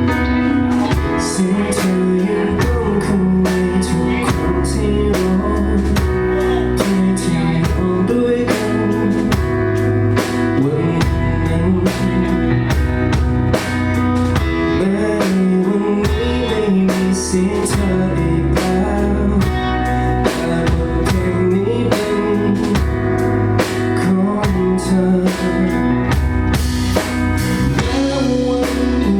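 Live band playing an instrumental passage of a slow pop-rock song: drum kit keeping a steady beat under guitars, with a melodic lead line weaving over the chords.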